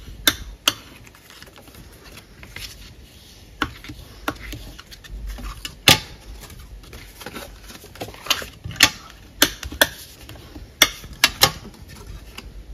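White cardstock being creased with a bone folder and handled: scattered sharp taps and clicks of the folder and card over a soft paper rustle.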